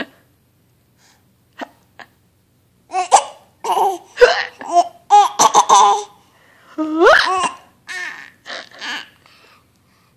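Young child hiccuping: two short hiccups about a second and a half and two seconds in. From about three seconds in, a run of high-pitched giggling and squealy laughter follows, with one rising squeal about seven seconds in.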